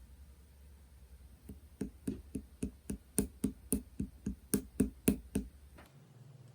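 Slime being poked and pressed with the fingers, making a run of about fifteen sharp clicky pops, about four a second.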